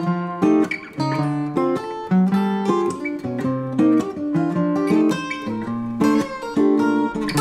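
Acoustic guitar playing an instrumental break: a picked melody line of single notes over strummed chords.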